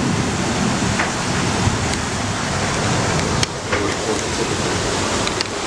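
Steady rush of water and wind from a Gunboat 66 sailing catamaran running at about 20 knots, with two brief clicks.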